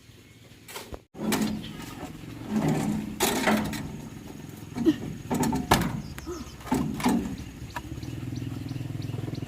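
Old tractor engine sputtering and running unevenly in loud irregular bursts, then settling into a steady, evenly pulsing run near the end.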